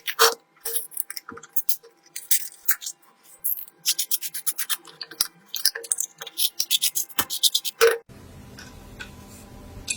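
Short rubbing and scratching strokes on a hard surface in quick, irregular bursts. They cut off about eight seconds in, when background music starts.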